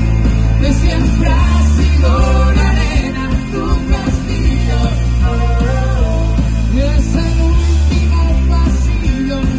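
Live rock band playing loudly through a festival PA: electric guitars and a heavy bass line under a melody, heard from within the audience.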